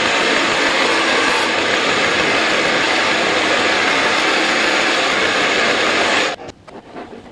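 Handheld hair dryer blowing steadily at close range, cutting off suddenly about six seconds in, followed by a few faint knocks.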